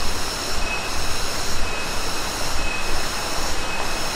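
Loud chorus of cicadas: a steady, high-pitched whine that swells roughly once a second, over a low rumble.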